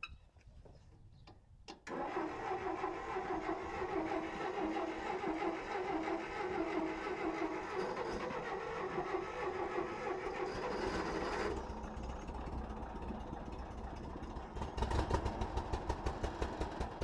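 1961 Massey Ferguson 35 tractor being started after eight years standing. Starting about two seconds in, the engine cranks steadily for about ten seconds. Then the sound drops and turns into uneven low pulsing near the end.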